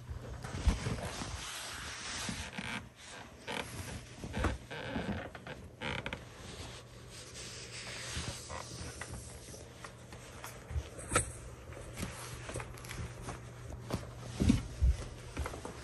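Scattered creaks, knocks and rustling from someone moving about on a wooden floor, over a low hum. A sharp click comes about eleven seconds in.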